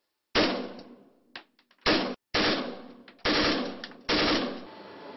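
AK-12 assault rifle firing five short bursts of automatic fire in quick succession, each cut off sharply.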